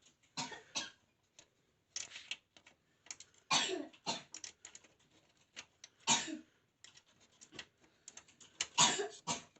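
Irregular clicks, taps and scrapes of a graphics card being screwed into a PC case's expansion-slot bracket, with three louder rasping bursts about three and a half, six and nine seconds in.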